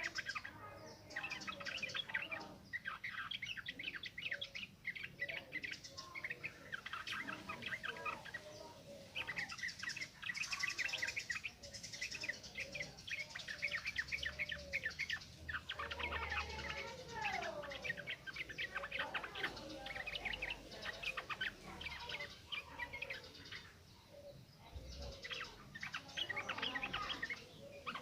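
Yellow-vented bulbul singing in rapid, almost unbroken runs of chirping and warbling notes, the busy 'ngropel' song used as a lure for young birds.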